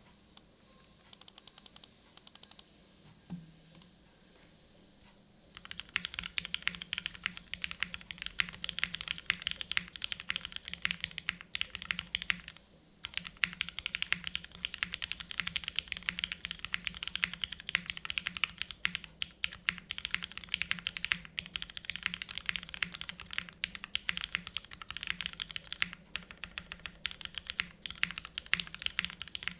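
Fast, continuous typing on an Anorexus Void65 mechanical keyboard, O-ring mounted, with Cherry MX2A Black linear switches and GMK Jamon keycaps. The typing starts about five seconds in, after a few faint ticks, and pauses briefly near the middle.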